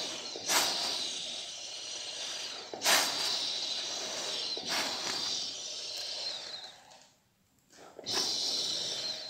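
Hand-held gas torch hissing steadily as its flame heats a small copper or brass ring band red-hot, with a few short clicks. The hiss stops about seven seconds in and starts again a second later.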